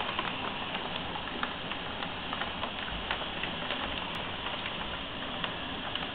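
Hupfeld Phonola push-up piano player running the blank leader of its paper roll: a steady airy hiss from the foot-pumped pneumatic action and the paper passing over the tracker bar, with scattered light clicks and taps, just before the roll's first notes sound.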